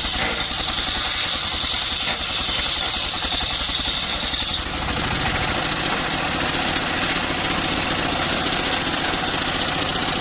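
Engine driving a homemade circular sawmill, running steadily with a high whine on top; about four and a half seconds in the whine drops away and the engine note shifts.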